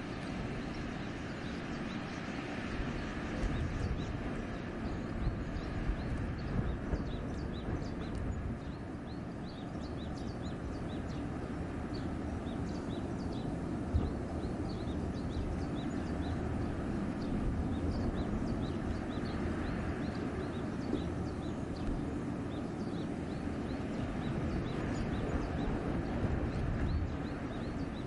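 Wind blowing through trees, a steady rushing that swells in gusts with a deep rumble underneath. Small birds give short, high chirps over and over through most of it.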